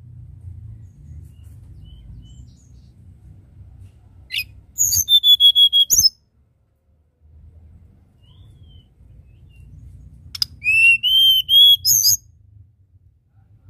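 Caged tledekan gunung, a Cyornis blue flycatcher, singing two short phrases of clear whistled notes: a quick run ending in a held note about four seconds in, and a string of about five rising, slurred notes near the end.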